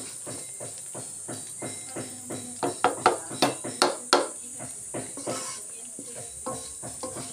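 Plastic spatula stirring and scraping sliced hotdogs around an oiled nonstick wok, about three strokes a second, with a run of louder knocks against the pan in the middle, over the steady sizzle of the hotdogs frying in oil.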